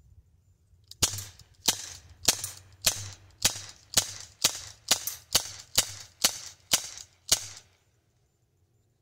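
Glock 19 replica air pistol fired in a rapid string, about a dozen sharp pops at roughly two shots a second, starting about a second in.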